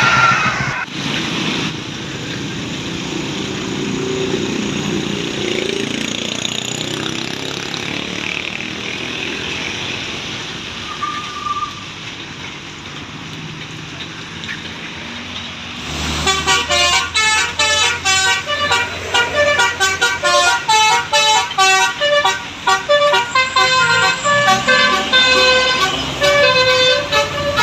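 Road traffic and bus engine noise, then, starting abruptly about halfway, a bus's telolet basuri musical air horn plays a fast melody of short notes stepping up and down.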